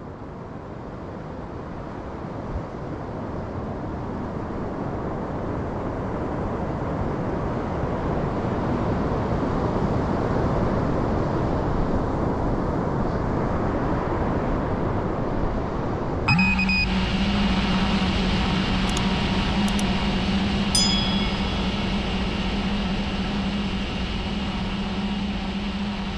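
Strong wind and rough surf rushing, slowly growing louder. About sixteen seconds in, an FPV drone's motors start and hum steadily at idle, with a few short beeps and clicks as it arms.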